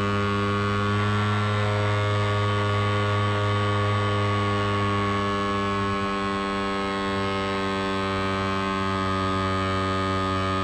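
A steady hum with many overtones, holding one pitch at an even level.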